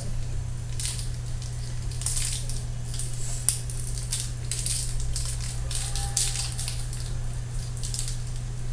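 A chocolate wrapper crinkling and tearing as it is worked open by hand, in irregular rustles, with one sharp click about three and a half seconds in. A steady low hum runs underneath.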